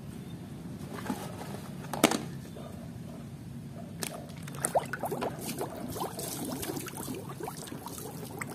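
Muddy water sloshing and dripping as a plastic toy is swished and rinsed by hand in a plastic tub, with small splashes from about four seconds in. One sharp knock comes about two seconds in.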